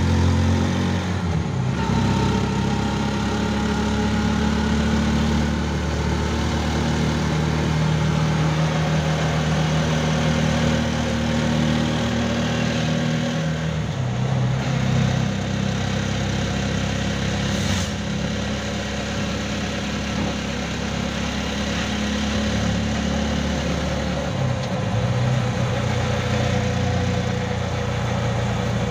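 Small vehicle's engine running steadily on the road, heard from inside its cramped passenger cab. The engine note shifts about halfway through and again near the end, as the speed or gear changes.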